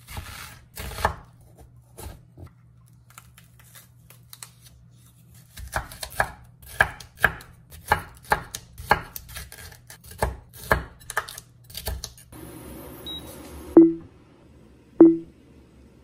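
Kitchen knife chopping bell peppers on a wooden cutting board: a few cuts, then a run of steady strokes about two a second. Near the end the chopping stops, and two loud, short knocks sound over a steady hiss.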